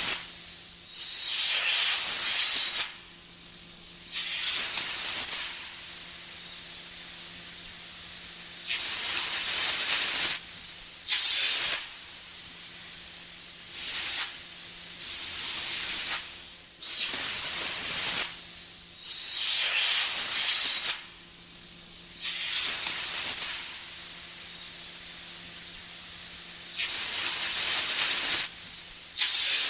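Iguana hissing: about a dozen sharp, breathy hisses, each lasting one to two seconds and coming every few seconds at uneven spacing, over a steady softer hiss.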